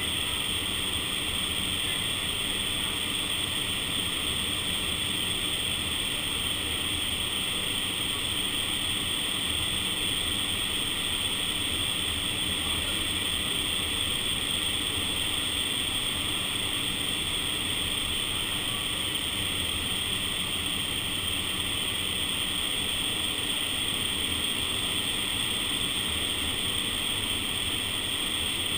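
Steady rush of air inside an indoor vertical wind tunnel, the fan-driven airflow blowing hard past the microphone without let-up.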